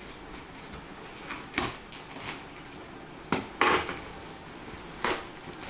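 Parcel packaging being handled and opened by hand: a run of separate sharp knocks and scrapes, the loudest a little past the middle.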